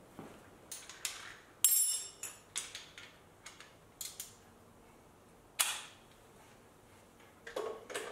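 Metal hand tools clinking and knocking against each other and the engine's metal parts: about a dozen sharp, separate clicks and clanks, the loudest a ringing metal clank a little under two seconds in.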